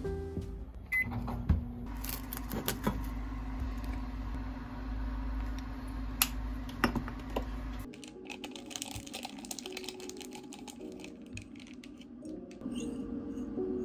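Microwave oven beeps once, then runs with a steady low hum and a few sharp clicks. About eight seconds in the hum stops, and light metal clinks of a spoon in a ceramic mug follow.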